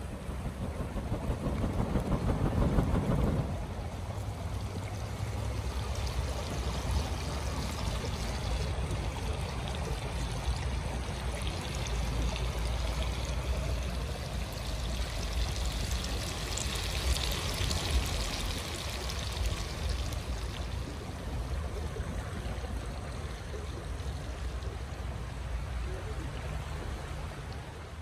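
Shallow stream running steadily, mixed with chicken pieces sizzling in a pan of hot oil over a wood fire. There is a louder rush of noise about two to three seconds in.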